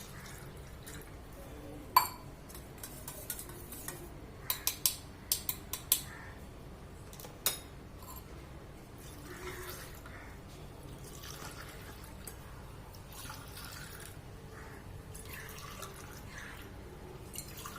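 A spoon stirring honey and spices into hot water in a tumbler, clinking against its side. The loudest clink comes about two seconds in, then a quick run of clinks, then softer stirring.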